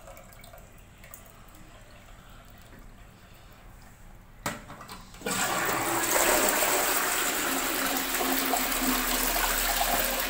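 Newly installed INNO WC1009S close-coupled dual-flush toilet being flushed. After a sharp click about four and a half seconds in, a loud rush of water starts about a second later as the cistern empties into the bowl and swirls down.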